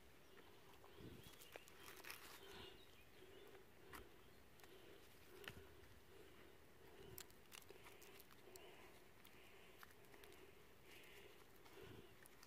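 Near silence: faint outdoor ambience with scattered soft clicks.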